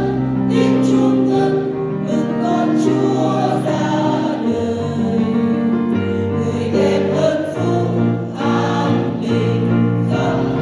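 Church choir singing a Vietnamese hymn in held, multi-part chords.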